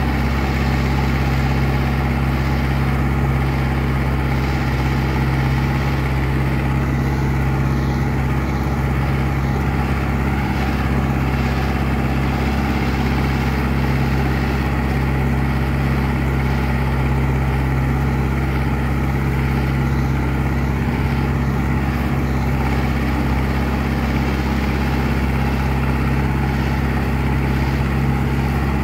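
Zetor 7340 Turbo tractor's turbocharged four-cylinder diesel running steadily while plowing, with an even, unchanging engine note.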